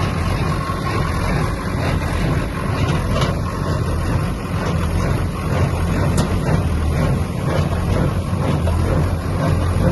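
Farmtrac tractor's diesel engine running steadily, driving a Jagatjit square baler, with a continuous low drone.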